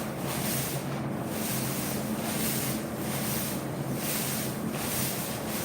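A steady machine hum under a hiss that swells and fades about once a second.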